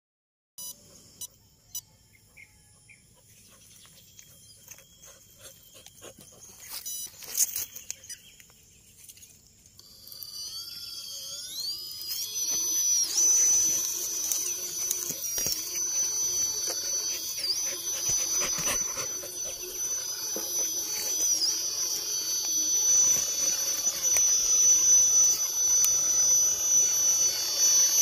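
The electric motor and gearbox of a 1/10-scale RC rock crawler, giving a high whine. It comes in about ten seconds in, rising in pitch as the throttle opens, and holds high with brief dips as the throttle changes. Before that there are only a few faint clicks.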